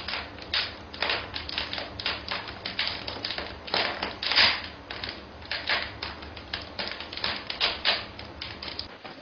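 Rapid, irregular clicking and tapping, several hard clicks a second, with a longer scraping rasp about four seconds in.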